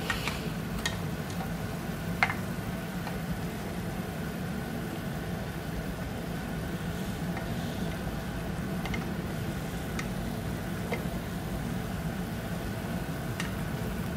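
A black plastic ladle knocking lightly against a metal pot a few times while pork and chicken livers are stirred in simmering adobo, over a steady low hum.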